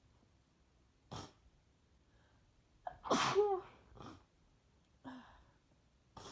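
A congested person with the flu sneezing hard once about three seconds in, a loud voiced sneeze, with shorter breathy bursts of breath before and after it.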